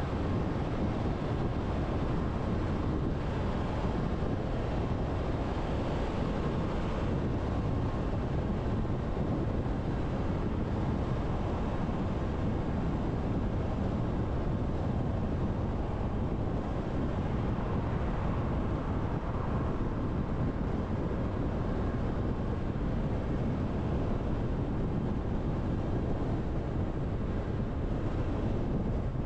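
Steady road noise of a car driving at expressway speed: tyre roar and wind noise with no distinct events.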